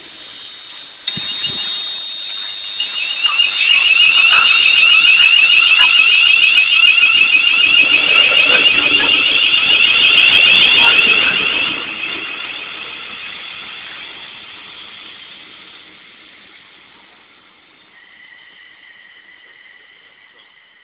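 London Midland Class 350 Desiro electric multiple unit passing close by at speed with a loud, high-pitched squealing whine. The whine builds over the first few seconds, holds for several seconds, then fades as the train draws away. Near the end a fainter, steady high whine sets in.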